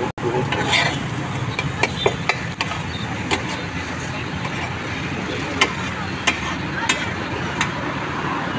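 Metal spatula clacking against a large iron tawa at irregular intervals, over a steady hum of street traffic and background voices.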